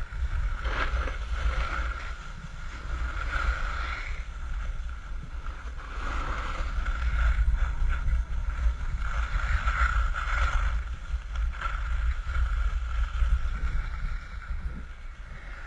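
Wind rumbling on the camera's microphone while skiing downhill, with skis hissing and scraping over packed snow in repeated swells.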